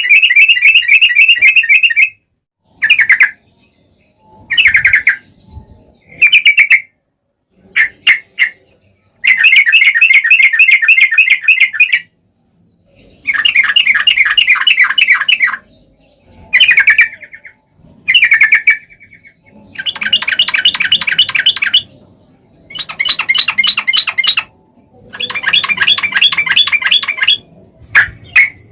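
Yellow-vented bulbuls (trucukan) singing: loud bursts of rapid bubbling chatter, each a second or two long, repeated again and again with short pauses and a few brief single notes between.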